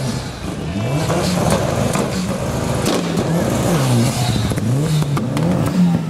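Mitsubishi Lancer Evolution VIII's turbocharged four-cylinder engine revved hard over and over, its pitch rising and falling about five times, with short sharp cracks between the revs.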